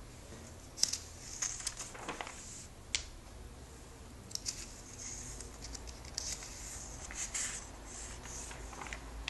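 A paper comic book being opened and its pages turned by hand: paper rustling and crinkling in short bursts with a few sharp clicks.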